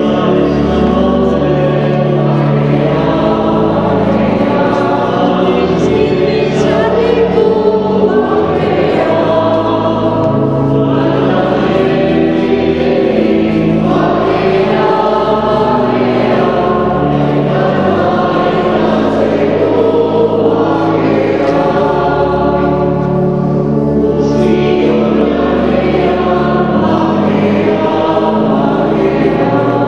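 Background music: a choir singing, with held chords that change every second or two.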